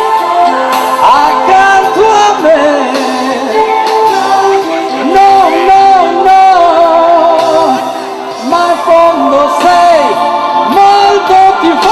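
Music: an Italian pop song, with a voice singing long, gliding notes over the accompaniment.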